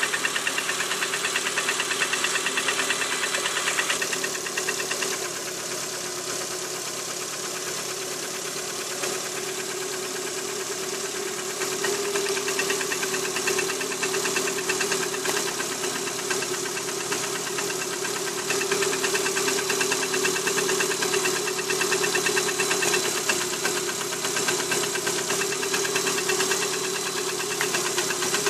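Lada Priora's VAZ-21126 1.6-litre 16-valve four-cylinder engine running with a fast, even knock, a little quieter for several seconds partway through. The knock is the one this engine is known for, blamed on its narrow-skirted pistons rocking in the cylinders.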